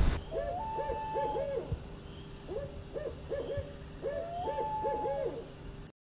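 Owl hooting: three bouts of short hoots, the first and last each with a longer held note, cutting off abruptly just before the end.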